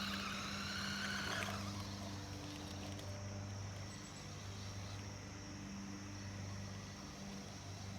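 Electric motor of a remote-control toy truck whining as it speeds up, rising in pitch over the first second and a half, then fading away. A low steady hum continues beneath.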